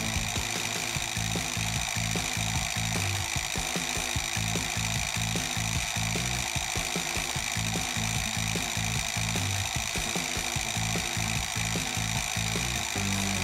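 Small DC electric motors of a homemade remote-control robot whirring steadily, with background music underneath.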